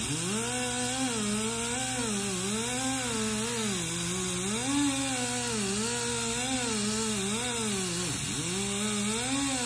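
Die grinder spinning a cotton buffing wheel loaded with jeweler's rouge against the steel face of a body hammer, polishing it toward a mirror finish. A steady hiss under a whine that sags and recovers as the wheel is pressed on and eased off, dipping deepest about eight seconds in.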